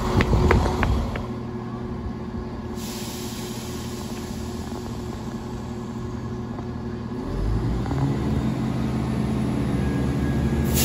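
Class 170 Turbostar diesel multiple unit rolling into the platform, its wheels clicking over rail joints about three times a second for the first second. It then stands with its diesel engines idling in a steady low hum, which deepens and grows louder about seven seconds in.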